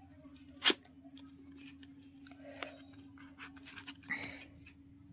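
Light clicks and taps of plastic lipstick tubes being handled in their plastic tray, with one sharper click under a second in, over a steady low hum.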